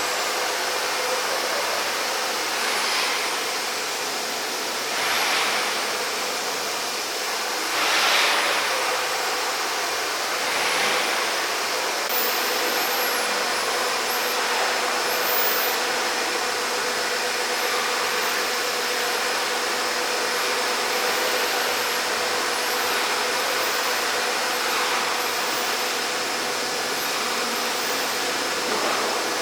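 CNC milling machine running: a steady machine drone with a constant hum, a few louder swells of noise in the first ten seconds, then repeated short high whines that rise and fall about once a second.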